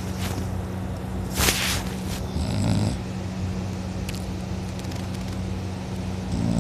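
A sleeping person snoring: one low snore about two and a half seconds in and another starting near the end, with a brief loud hiss shortly before the first, over a steady low hum.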